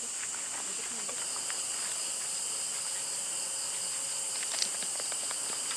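Steady, high-pitched chorus of night insects, with scattered faint clicks and one sharper tick about four and a half seconds in.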